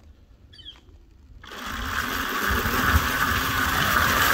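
A 2000 W brushless DC motor on a reel mower starts up about a second and a half in and runs with a steady whir. It is running unloaded, drawing a little over an amp.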